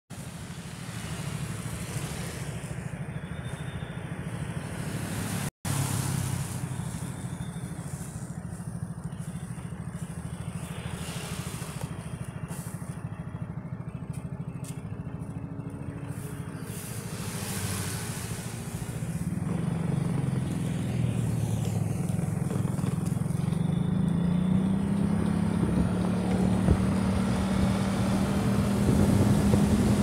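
Engine and road noise from a moving vehicle on a city street, steady at first, with the engine note climbing and getting louder in the second half as it picks up speed. A brief dropout about five and a half seconds in.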